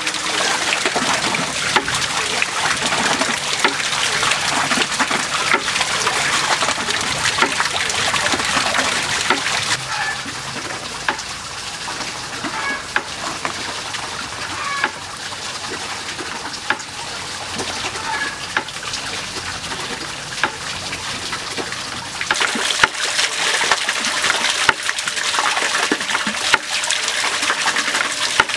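Open wood fire crackling under a wok, with sharp snaps over a steady hiss of simmering water. Quieter through the middle, then louder again toward the end.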